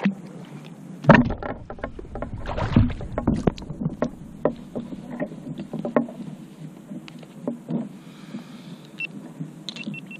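Irregular knocking and clattering aboard a kayak, heaviest about a second in with a low rumble under a cluster of knocks, then scattered knocks. A quick run of high beeps near the end.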